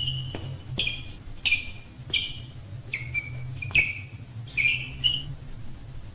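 Shoes squeaking on a floor with each dance step: a short, high, slightly falling squeak with a light tap about every two-thirds of a second, over a low steady hum.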